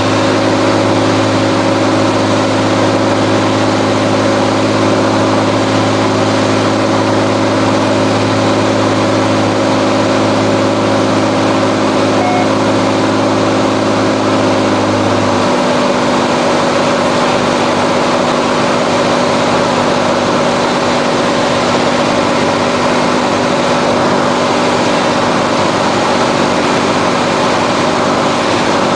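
Cirrus SR22's six-cylinder Continental piston engine and propeller droning steadily, heard inside the cockpit, with a rushing airflow noise underneath. About halfway through, the engine note drops slightly and its deepest tone fades out.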